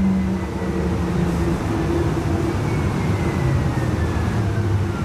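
Siemens S70 low-floor streetcar running, heard inside the passenger car: a steady rumble and hum, with a faint high whine that falls in pitch over the second half.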